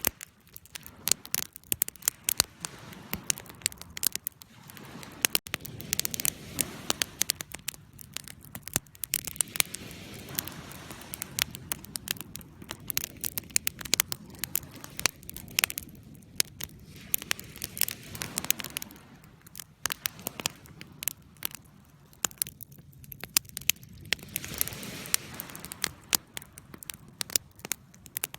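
Campfire burning with many sharp, irregular crackles and pops over a low, steady rush of flames.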